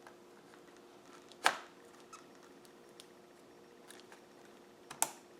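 A few sharp plastic clicks and taps from hands handling PC components on the motherboard. The loudest comes about a second and a half in and another near the end, with fainter ticks between and a faint steady hum underneath.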